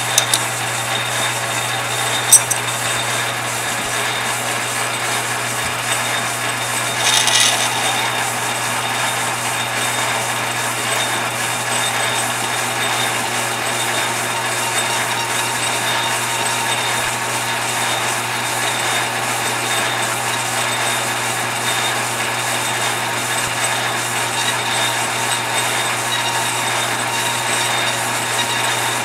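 Metal lathe running steadily with a low motor hum while a cutting tool recuts grooves in a thin rod. A sharp tick comes about two seconds in, and a brief louder scrape about seven seconds in.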